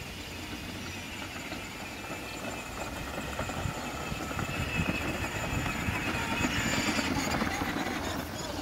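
Battery-powered ride-on toy jeep driving over brick paving: a steady whine from its electric drive with the wheels rattling over the bricks, growing louder as it comes closer and loudest about six to seven seconds in.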